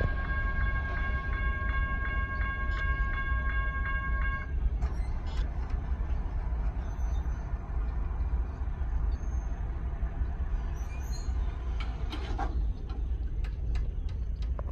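Dual GS Type 1 electronic crossing bells ringing in a steady pattern of about three strikes a second, stopping about four and a half seconds in as the crossing clears. A low rumble runs underneath throughout.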